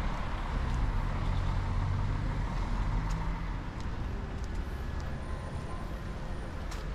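Motor vehicle engine running, a low steady hum that is strongest in the first half and then fades.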